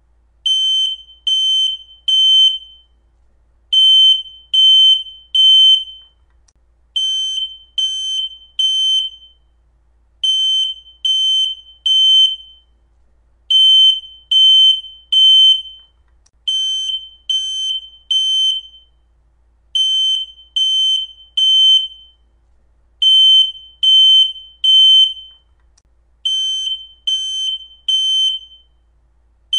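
Smoke detector sounding its full alarm: loud, shrill beeps in groups of three, each group repeating about every three seconds. This is the temporal-three evacuation pattern of a smoke alarm going off, not the single chirp of a low battery.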